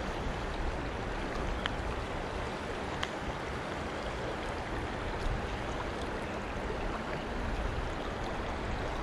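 Steady rush of river current flowing over and around rocks, with a couple of faint ticks near the start.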